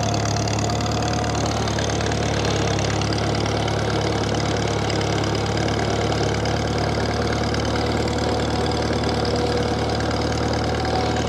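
1950 Farmall Cub's four-cylinder flathead engine running steadily as the tractor drives along under its own power.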